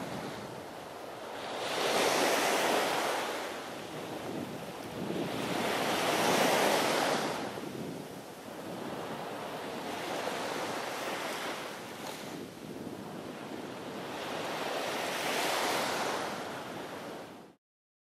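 Ocean surf washing onto a beach, swelling and fading about every four seconds as each wave comes in. It cuts off suddenly near the end.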